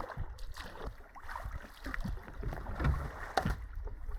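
Canoe being paddled on a river current: paddle strokes splashing and water moving along the hull, with wind rumbling on the microphone and a couple of sharper knocks about three seconds in.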